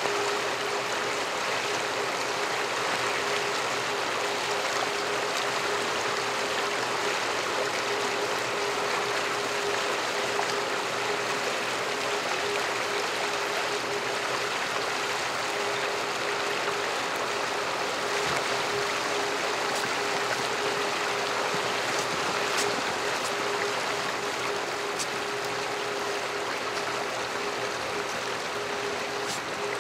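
Winter stream flowing steadily between snow and ice banks: an even rush of running water. A faint steady hum sits under it.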